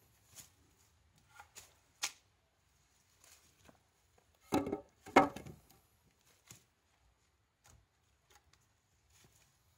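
Wooden knocks and clunks as shiitake-growing logs and wooden slats are handled on a rack: scattered light taps, and two louder clunks about half a second apart halfway through.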